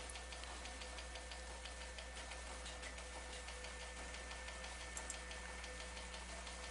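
Faint steady electrical hum with a rapid, irregular stream of faint ticks or crackles, and two quick clicks close together about five seconds in.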